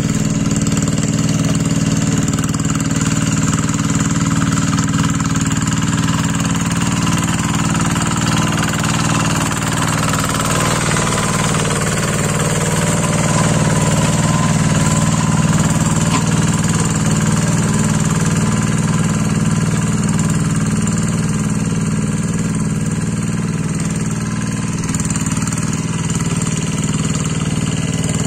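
Quick G1000 two-wheel hand tractor's Kubota single-cylinder diesel engine running steadily under load while working a muddy paddy field, slightly louder for a while in the middle.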